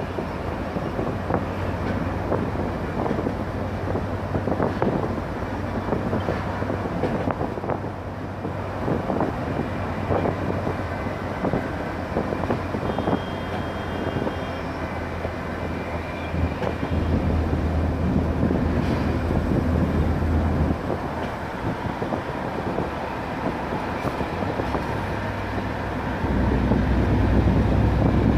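Bus engine droning with tyre and wind noise, heard from inside the cabin while cruising on a highway. The low engine note grows louder twice, in the middle and near the end.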